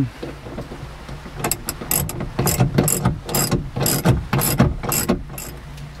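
Ratchet wrench with a long 18 mm socket clicking in short runs, starting about a second and a half in, as it tightens the nut on a seatbelt retractor's mounting bolt.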